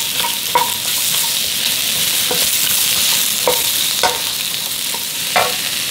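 Zucchini and onion sizzling in hot oil as they are stir-fried in a pan, with a utensil knocking against the pan about six times.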